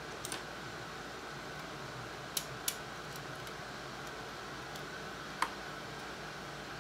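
A few faint, sharp metallic clicks, four or so spread over several seconds, as a coiled steel recoil spring is worked over its guide rod in a Winchester 1903 rifle's action. A steady low hiss sits underneath.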